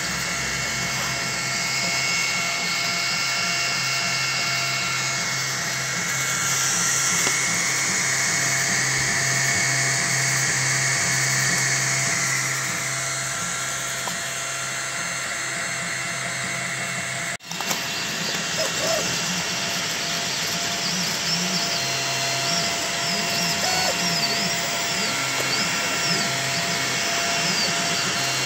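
Desktop FDM 3D printer printing a part: its stepper motors whine in shifting pitches as the print head moves, over the steady hum of its cooling fans. The sound breaks off for an instant about two-thirds of the way through.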